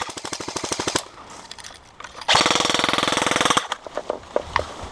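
Airsoft gun firing rapid full-auto bursts: one burst ends about a second in, and a second loud burst follows a little over a second later. A few single sharp cracks come near the end.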